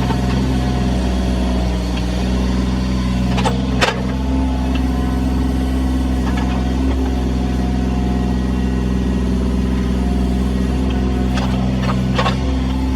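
Engine of digging or lifting machinery running steadily at an even speed, with a few sharp metallic knocks about four seconds in and again near the end.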